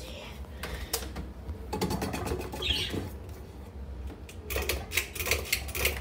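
Hampton Bay Metairie 24-inch ceiling fan running with a steady low hum, under irregular clicks and a short high chirp a little before halfway.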